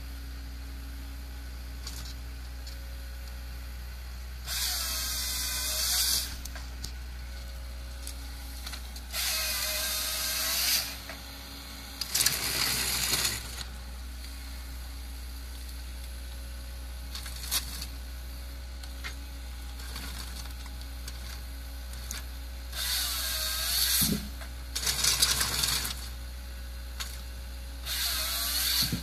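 High-performance forestry machine running steadily, broken six times by a loud, high-pitched whine one to two seconds long that dips in pitch and comes back up.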